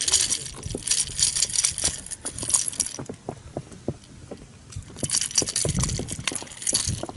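Rapid metallic clicking and jingling of a lure's treble hooks and leader hardware as they are worked free from a caught pike's mouth by hand. It comes in two spells with a lull of about two seconds between them.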